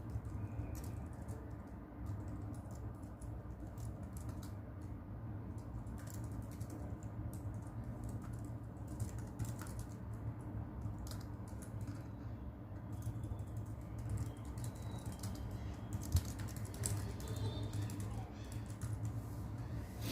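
Typing on a keyboard: irregular keystroke clicks over a steady low rumble of brown noise.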